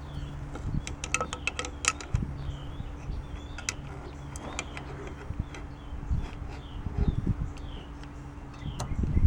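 Light metallic clicks and taps of needle-nose pliers working a steel snap ring onto an AC compressor clutch housing, thickest about a second in, with handling knocks near the end. A small bird chirps repeatedly over a low steady hum.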